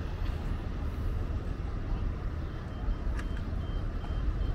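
Outdoor city street ambience: a steady low rumble of traffic. Near the end a faint series of short high beeps repeats about three times a second.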